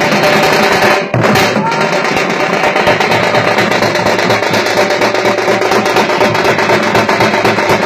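A group playing thamate frame drums and barrel drums together: loud, fast, continuous folk drumming, with a momentary break about a second in.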